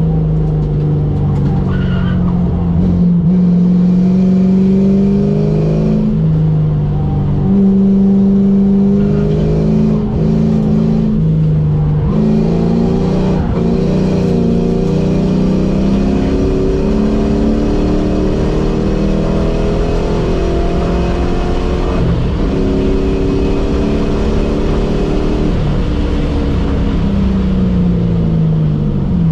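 Ford SN95 Mustang's engine at hard track driving, heard from inside the cabin: its pitch climbs and falls continuously, with several abrupt steps as it changes gears.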